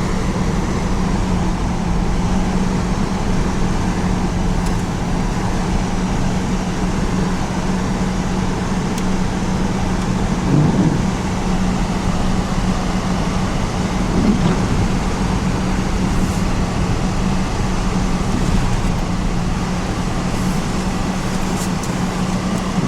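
Steady running of an engine or motor, with a constant low hum under an even rushing noise and a couple of brief swells partway through.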